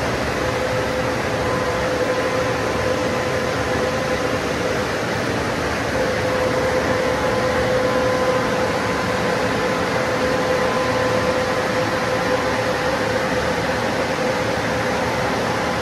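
WashBot Transformer 3XM in-bay automatic car wash machine running overhead: a steady rushing noise with a steady mid-pitched hum.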